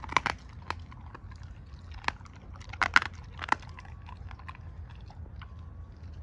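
A Doberman chewing and biting, with a few sharp crunches of its teeth, the loudest cluster about three seconds in.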